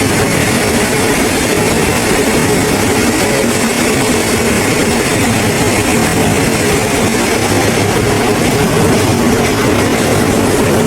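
Heavy machinery running with a loud, steady noise.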